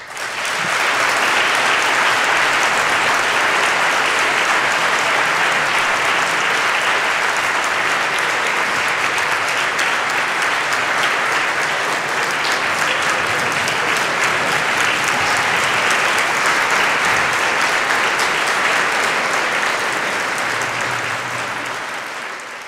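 Large audience applauding, a dense, steady clapping that begins at once and dies away near the end.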